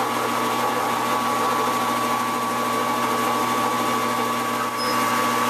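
Metal lathe running steadily at slow speed, turning a rifle barrel while a chamber reamer is fed into the bore by hand: a steady motor hum with a faint high whine.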